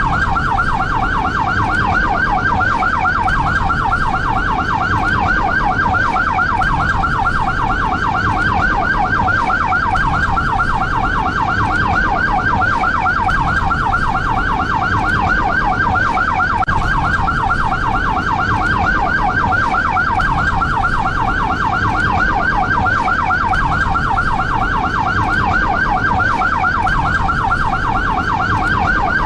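SAMU ambulance siren sounding a fast yelp, its pitch sweeping rapidly up and down several times a second without a break, over a low rumble.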